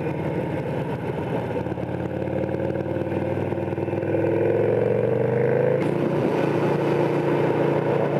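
Harley-Davidson Sportster's V-twin engine accelerating up through the gears, heard from the rider's helmet with wind rush. The engine note climbs, drops sharply at an upshift about two-thirds of the way through, then climbs again.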